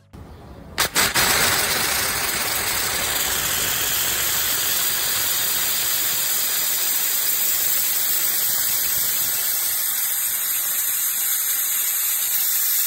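Compressed-air line or blow gun spraying a steady hissing jet that is spitting water, because the shop's air compressor tanks have not been drained. It starts with a couple of clicks about a second in and runs on evenly.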